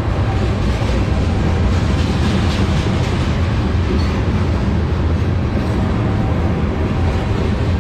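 Diesel-hauled freight train of tank cars rolling past, a loud, steady low rumble.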